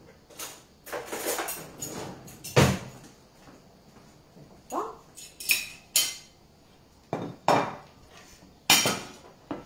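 Kitchen clatter: a series of separate knocks and clinks of dishes and utensils being handled on a wooden table, the loudest a little under three seconds in.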